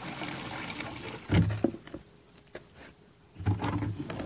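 Water poured from a jug into a plastic bucket onto water-absorbing polymer granules. The pouring stops about a second in, followed by a few dull knocks and handling of the plastic bucket.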